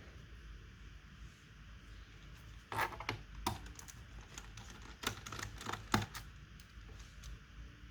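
Clicks and light clattering of small hard parts being handled while a laptop is worked on, in two short clusters, about three seconds in and again about five to six seconds in.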